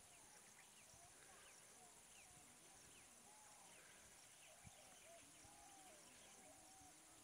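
Near silence: faint outdoor ambience with many short, faint bird chirps scattered throughout over a steady high hiss.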